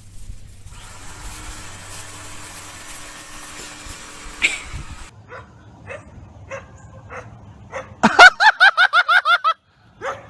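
A puppy yipping: a few faint short yips, then a quick string of about ten loud, high yips.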